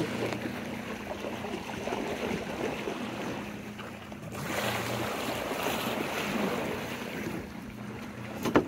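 Boat engine running steadily under the rush of water along the hull and wind on the microphone; the water noise swells louder about halfway through. A short knock comes near the end.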